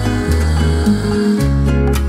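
Instrumental background music with a steady beat and a moving bass line.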